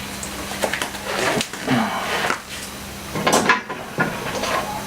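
Hand tools being handled: a scatter of irregular knocks, clicks and rustles as a screwdriver or drill is picked up and set down.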